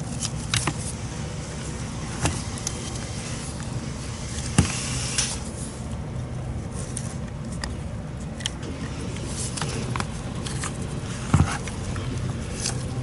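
Scattered small clicks and taps as a motorcycle carburetor's vacuum slide and diaphragm are handled and seated in the carburetor body. Two sharper clicks come about 4.5 and 11 seconds in. A steady low rumble runs underneath.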